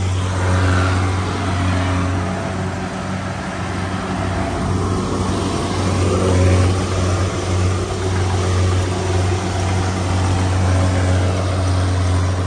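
Rice combine harvester running steadily close by: a deep, even diesel engine drone under a wide rushing noise from the machine.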